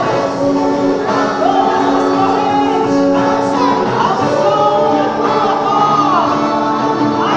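Gospel worship music: many voices singing together over instruments, loud and continuous.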